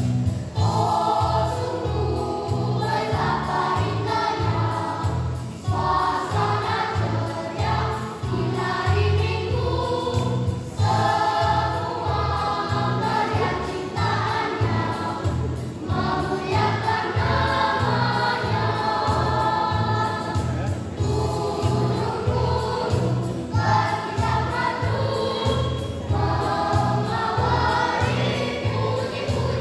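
Children's choir singing together in phrases of a few seconds, over a musical accompaniment with a steady bass beat.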